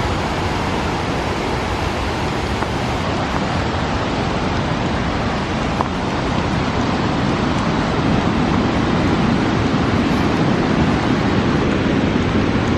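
Rushing whitewater of a fast mountain river running high, a loud steady roar of water that swells a little past the middle.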